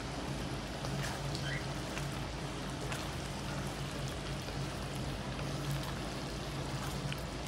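Red kidney beans, onions and tomatoes sizzling and simmering in a wok, a steady hiss, with a few light scrapes of a wooden spatula stirring. A steady low hum runs underneath.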